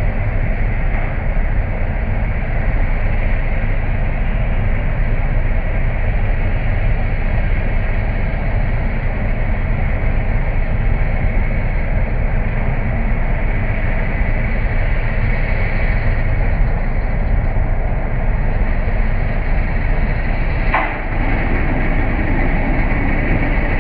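Asphalt cold milling machine (cold planer) at work, a loud steady mechanical noise heavy in the low end, with a brief dip and a sharp click about twenty-one seconds in.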